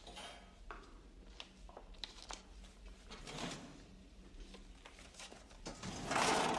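A questionnaire's papers rustling and a sliding metal pass-through tray being pushed through the cell wall, with scattered light clicks. A louder scraping rush near the end is the tray sliding through.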